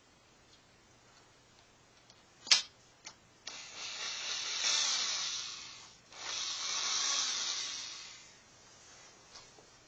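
Electric drill run twice, each run about two and a half seconds, speeding up and slowing down as it works a bolt on a Nissan VQ30DE engine's timing chain assembly. A sharp click comes about a second before the first run.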